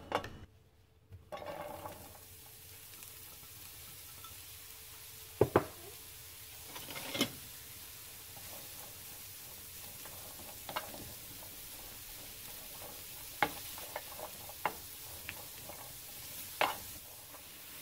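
Sliced button mushrooms sizzling faintly in hot oil in a nonstick frying pan, starting about a second in. A few sharp clicks and knocks of a wooden spoon against the pan come through it as the mushrooms are stirred.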